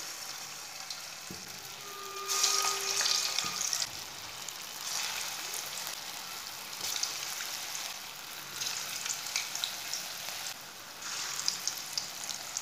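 Gram-flour and mint kababs deep-frying in hot oil: a steady sizzle that swells louder several times as more kababs are added to the oil.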